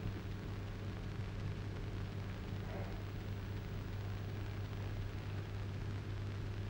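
Steady low electrical hum with an even hiss: the background noise of an old 1962 film soundtrack.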